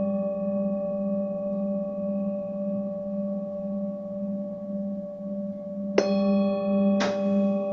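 Singing bowls ringing steadily with a slow, pulsing low hum. A bowl is struck twice, about a second apart, near the end, each strike ringing on.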